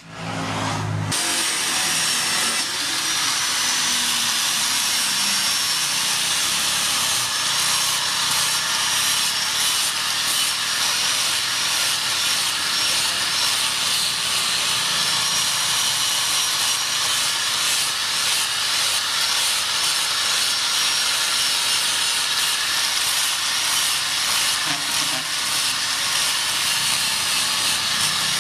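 Handheld angle grinder with an abrasive disc grinding the steel head of a ball peen hammer, a steady hiss with a faint high motor whine. It starts about a second in.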